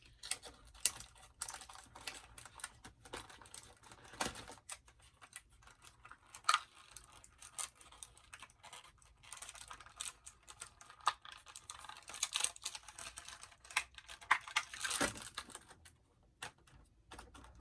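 Small plastic toy pieces and packaging being handled: a dense, irregular run of light clicks, taps and crinkles.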